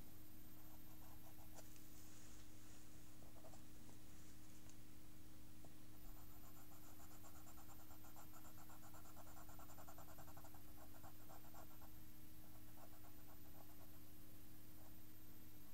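Pencil scratching on paper in quick, short strokes, with a long busy run of strokes in the middle. A steady low hum runs underneath.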